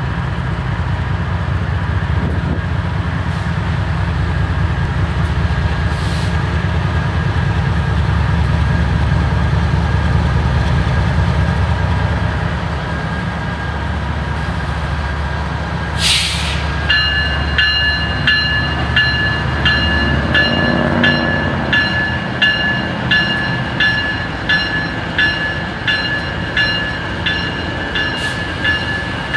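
BNSF diesel locomotives passing, engines rumbling heavily, with a short hiss about 16 seconds in. From then on a bell rings steadily, about one and a half strokes a second, over the rolling train.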